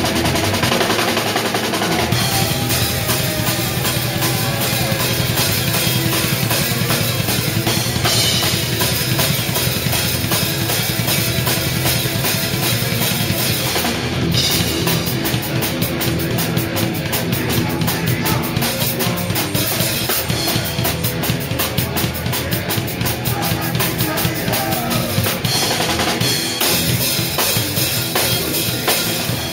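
Loud live band music with a drum kit up front: kick drum, snare and cymbals driving the song. About halfway through the drumming turns to fast, even strikes.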